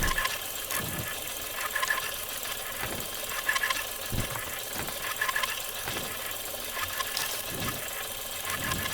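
Old film projector sound effect: a steady mechanical whirr and clatter with hiss and crackle, broken by irregular low thumps about once a second.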